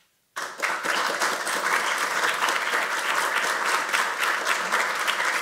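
Audience applauding: dense clapping that starts suddenly about a third of a second in and holds steady.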